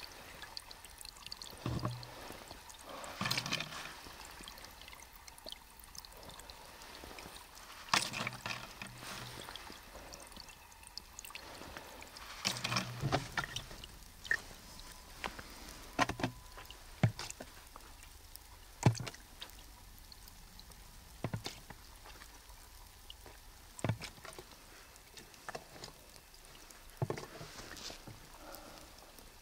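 Water scooped from a spring with a plastic bottle cap and poured into a large plastic water jug, a capful at a time: about a dozen short pours and splashes, with small clicks, every few seconds.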